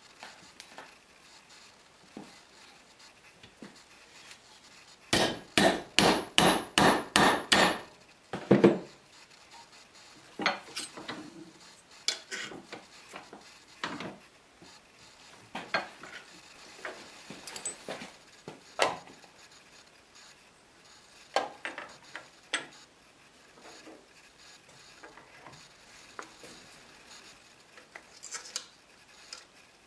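A quick run of about eight hammer blows on metal clamped in a bench vise, about five seconds in, then one heavier knock. After that, scattered clicks and taps of metal parts and tools being handled at the vise.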